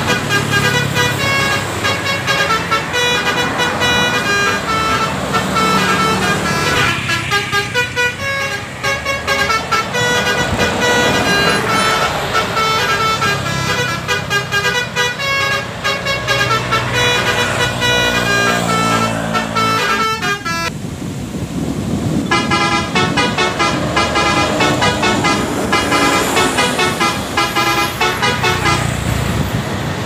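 Telolet bus horns playing quick multi-tone tunes, the notes changing several times a second, over the engines and tyres of passing traffic. About twenty seconds in the sound breaks off briefly and another horn tune starts.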